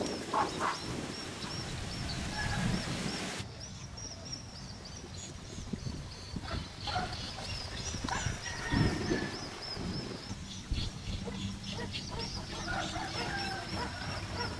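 Outdoor ambience of scattered bird calls, with a small high chirp repeating steadily throughout.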